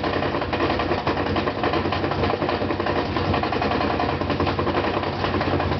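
GE top-load washing machine in its spin cycle with a load of two blankets, making an extremely loud, rapid knocking over a steady drum hum. The knocking comes from the concrete counterweight that balances the motor: its two screws were never tightened.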